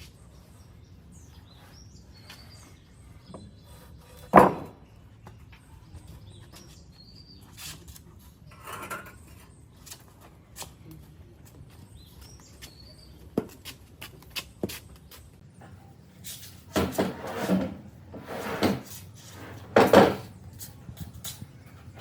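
Scattered knocks and clatter of wooden pieces being handled and set down, with one sharp knock about four seconds in and a cluster of louder bangs and scrapes near the end.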